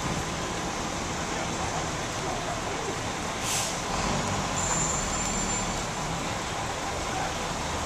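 Busy street and crowd ambience with traffic noise. About three and a half seconds in, a heavy vehicle's air brakes let out a short hiss, followed by the vehicle's engine running low for a couple of seconds and a thin, high, steady squeal lasting about a second.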